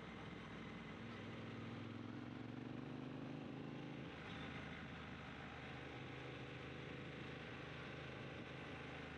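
Triumph T120 Bonneville's parallel-twin engine running under way. Its pitch climbs steadily for about three seconds, falls back about four seconds in, then holds steady over a haze of wind and road noise.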